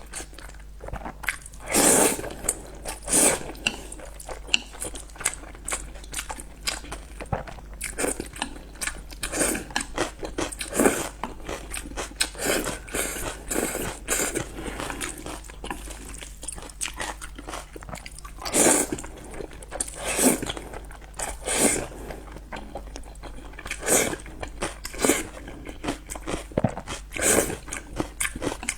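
Close-miked mouth sounds of someone eating spicy noodles: chewing with a constant run of small clicks, and louder short bursts every few seconds.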